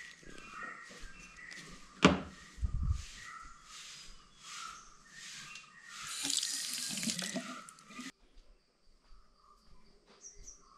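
Rhythmic scrubbing strokes about two a second, a sharp knock about two seconds in, then a tap running into a washbasin for about two seconds before it stops abruptly.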